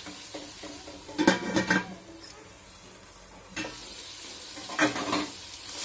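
A steel pot lid clattering against a cooking pot, with a cluster of ringing metal knocks a little over a second in and more clanks near the end as the lid comes off. Mixed vegetables sizzle softly in the pot underneath.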